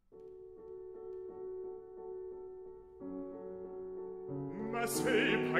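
Piano playing held chords under a recitative, changing to a new chord about three seconds in and adding a lower note a second later. Near the end a baritone voice comes in singing over the piano.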